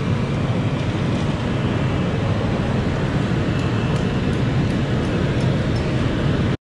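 Diesel engine of a concrete boom pump truck running steadily, a loud low drone that cuts off suddenly near the end.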